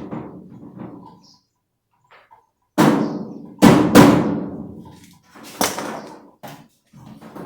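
Heavy knocks and bangs on a washing machine's body during disassembly: three loud blows about three to four seconds in, each ringing on and dying away over about a second, then a smaller knock.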